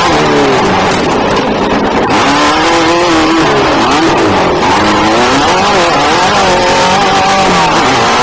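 Off-road race car engine running hard, its pitch rising and falling again and again as the throttle is opened and closed.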